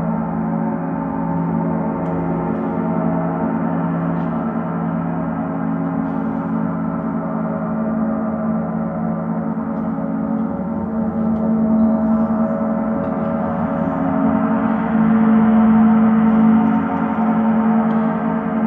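Gong played continuously, a sustained wash of many overlapping ringing tones that swells louder about twelve seconds in and again a few seconds before the end.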